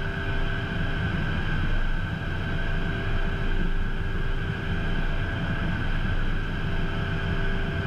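Steady cockpit noise of a Beechcraft Premier I business jet taxiing slowly on its idling Williams FJ44 turbofans: a low rumble under an even, high, steady whine.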